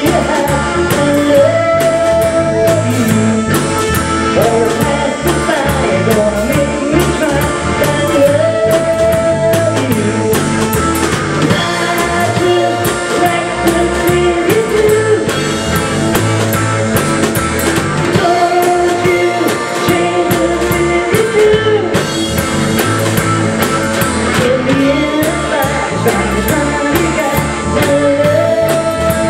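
Live rock band playing: electric bass, drum kit and electric guitar, with a held melody line that slides up into its notes every several seconds.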